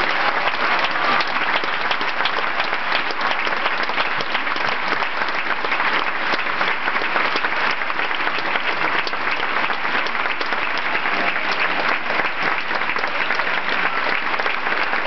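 Theatre audience applauding with dense, steady clapping.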